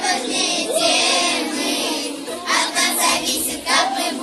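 A group of schoolchildren singing a song together in unison, with held notes and short breaks between phrases.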